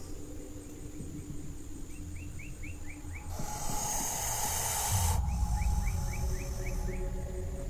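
Outdoor field sound with a low wind rumble. A bird calls twice with a quick run of about six short chirps. In the middle comes a loud hiss about two seconds long that starts and stops abruptly.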